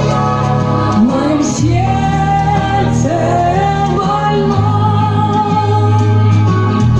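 Music with singing: a melody of held and gliding notes over steady, sustained bass notes.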